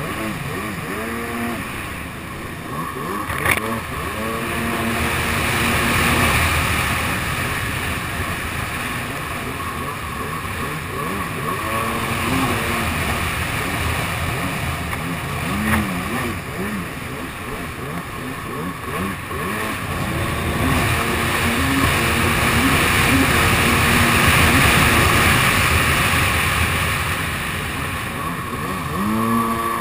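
Kawasaki SX-R 800 stand-up jet ski's two-stroke twin, breathing through a TBM dry-pipe exhaust, running hard and repeatedly revving up and easing off, with the rush of water spray and wind over it.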